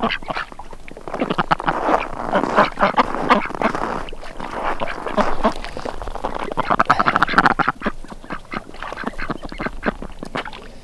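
A flock of domestic ducks quacking, many short calls overlapping one another.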